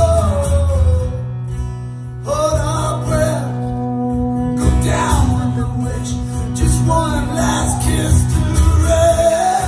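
A man singing over a strummed acoustic guitar in a live performance.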